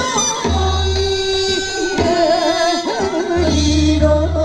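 Women singing a Korean folk-song (minyo) medley together through microphones over instrumental accompaniment, holding long notes that waver in pitch over a low bass line.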